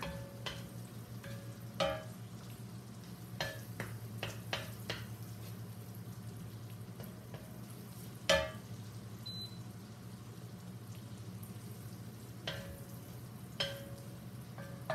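Chopped garlic and bacon sizzling in a hot wok, stirred with a wooden spatula that knocks and scrapes against the pan every second or few. The sharpest knock comes a little past halfway.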